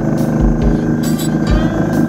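Background music with a steady beat over the steady running of a small boat's motor.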